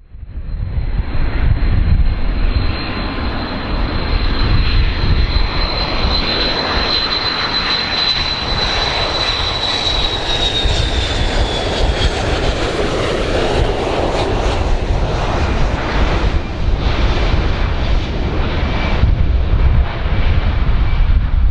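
Airplane engines running loud. The sound starts suddenly, with a steady deep rumble and a thin high whine that slides down in pitch about halfway through.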